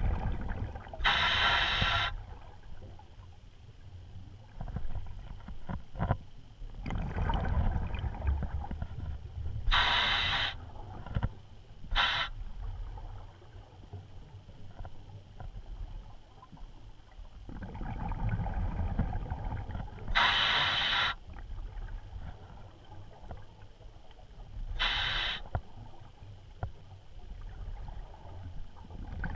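A scuba diver breathing through a regulator underwater: stretches of low, bubbling rumble from exhaled air alternate with short, loud hisses, five of them, the strongest coming about every ten seconds.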